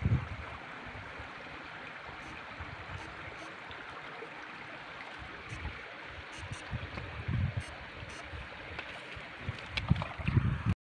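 Steady rush of water flowing in a shallow irrigation ditch, with a few brief low rumbles near the start, in the middle and near the end.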